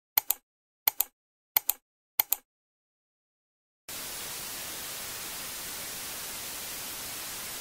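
Four pairs of short, sharp ticks about 0.7 s apart, then a second and a half of silence. After that comes a steady, even static hiss like white noise.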